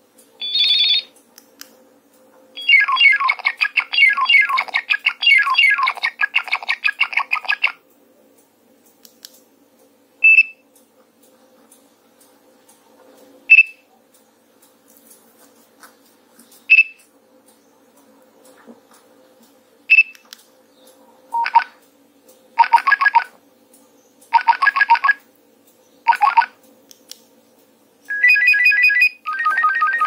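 Nokia 3105 mobile phone playing its ringtone previews through its small speaker as the ringing-tone list is scrolled. A short tone, then a busy high melody for about five seconds, then single short bleeps about three seconds apart, four short bursts in a row, and another melody near the end.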